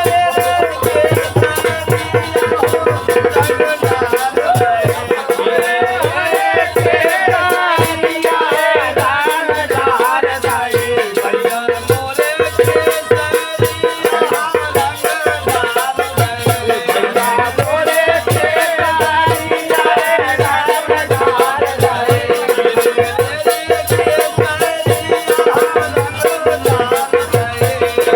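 Desi phag folk music: a fast, steady beat of drum and jingling cymbals or rattles, with a wavering melody line running over it.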